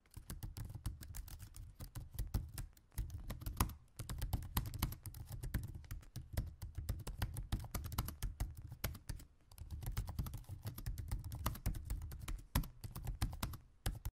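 Rapid computer-keyboard typing clicks, a sound effect for on-screen text being typed out letter by letter, with a few short pauses.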